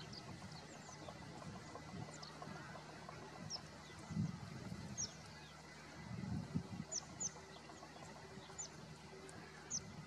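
Short, high, downward-slurred chirps of white-cheeked starlings, a dozen or so scattered at irregular intervals. A low rumble underneath swells about four seconds in and again around six seconds in.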